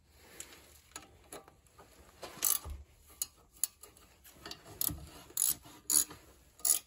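Ratchet wrench with a 15 mm socket clicking in irregular short spurts as the front brake caliper bracket bolts are run in.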